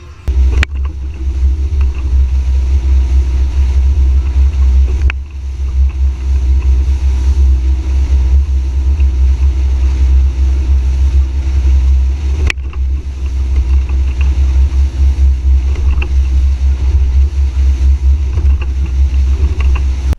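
Fishing boat under way, its engine running with a loud, steady low rumble. A few sharp knocks cut through: about half a second in, around five seconds, and around twelve seconds.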